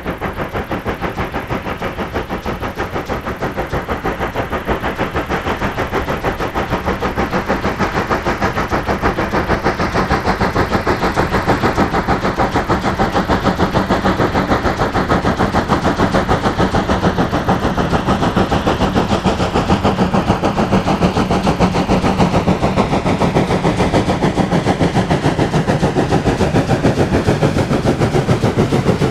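Steam locomotive working hard, its exhaust beats coming in a fast, even rhythm. The beats grow a little louder over the first ten seconds or so.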